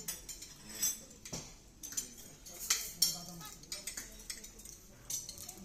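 Cutlery clinking against china plates and glassware at a dinner table: a scattering of separate sharp clinks at irregular intervals, over a faint murmur of voices.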